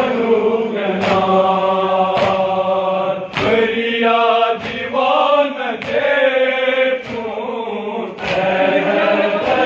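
Group of men chanting a Kashmiri Muharram noha together, with a sharp chest-beating (matam) slap about once a second keeping the beat.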